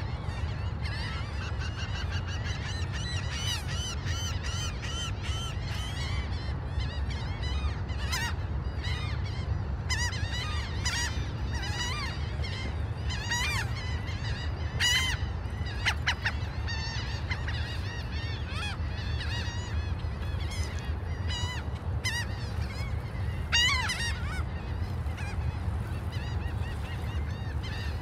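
Gulls calling again and again in short, arching yelps, with a cluster of louder calls about halfway and another near the end, over a steady low rumble.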